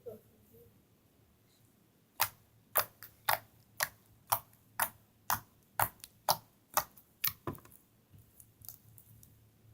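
Glossy milk slime being poked and pressed for ASMR, its trapped air popping in a row of sharp crackles about two a second, then a few fainter clicks near the end.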